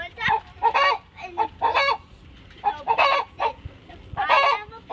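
Hen cackling in a run of repeated, loud calls: the egg song that hens give around laying.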